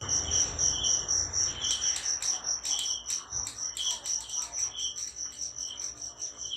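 Crickets chirping steadily, a high pulsing trill at about four chirps a second, with a second, lower chirp repeating roughly once a second. A low rumble sits under the first second or so.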